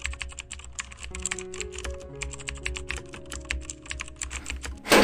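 Typing sound effect: rapid keyboard clicks over soft piano music, ending in a sudden loud burst near the end.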